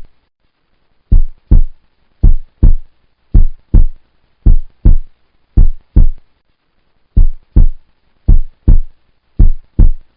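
Heartbeat-style soundtrack: loud, low thumps in lub-dub pairs, about one pair a second, with dead silence between them and two short breaks in the rhythm, near the start and about two thirds of the way in.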